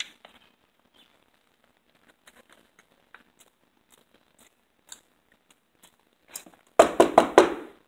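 Faint crinkling of a plastic bag and quiet chewing, then near the end about five quick, loud knocks on a wooden panel door.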